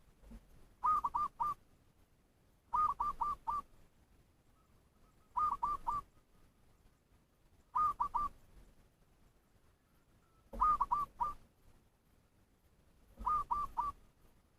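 Bird decoy call played to lure wild birds: six rhythmic phrases of three or four short, slightly falling whistled notes, repeated about every two and a half seconds.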